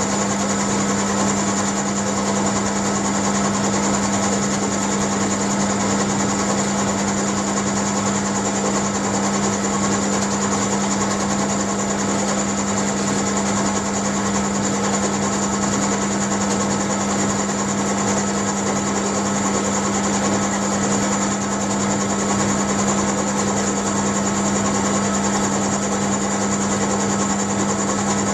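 Bench mill-drill running, its end mill taking a roughly 0.5 mm cut in steel as the table is fed by hand: a steady low motor hum with a thin high whine over it.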